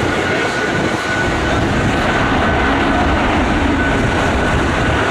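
Boeing 757 jet airliner's engines running, a steady loud rushing noise with a faint high whine held through it.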